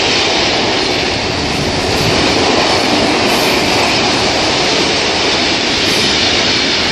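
Freight train's open box wagons, loaded with stone, rolling past close by: the steady, loud noise of steel wheels running on the rails.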